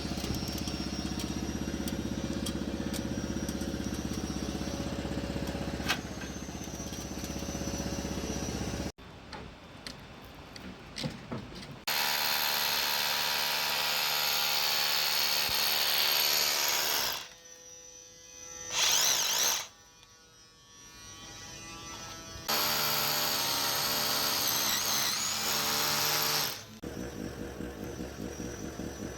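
Power tools running in a series of short clips, each a steady machine whine that cuts off abruptly into the next.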